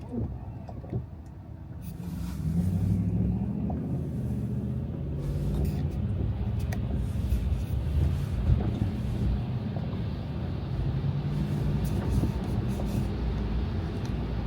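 Car driving on snow-covered roads: a steady low engine hum under tyre and road noise, growing louder about two seconds in and then holding steady.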